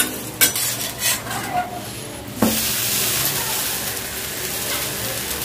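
Spatula scraping and tapping against a deep kadhai a few times, then about two and a half seconds in the bun dosa is flipped with a sudden knock and a steady sizzle of batter frying in hot oil takes over.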